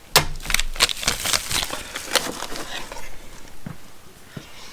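Small camera accessories and their plastic packaging being handled: a sharp click just after the start, then a run of lighter clicks and crinkles that thin out toward the end.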